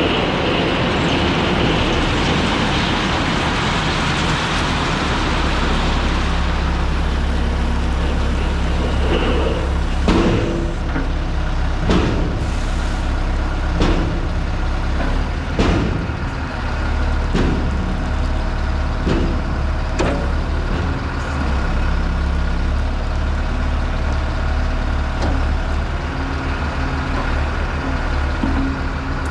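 John Deere 410G loader backhoe's diesel engine running steadily, with a high whine in the first few seconds. In the middle comes a series of sharp knocks, about one every two seconds.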